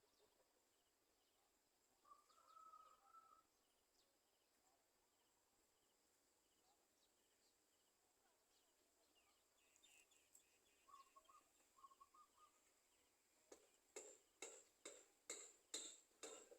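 Faint bird calls, then near the end a rapid series of short, sharp calls, about two to three a second, over a faint high steady hum.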